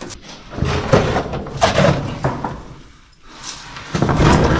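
A caver's body and gear scraping and knocking against rock while working down a tight hole. There are sharp thuds about one and one and a half seconds in, a brief lull, then more scraping near the end.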